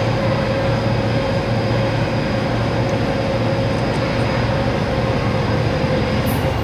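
35-ton crane hoist running steadily while lowering a railway car, a constant hum with a steady whine held over a low drone.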